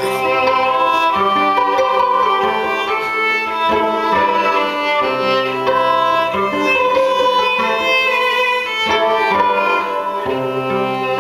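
Violin bowed live, playing a melody of changing notes over held low notes from another instrument.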